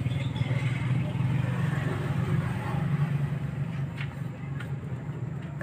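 Steady low-pitched engine hum, with a couple of faint ticks near the end.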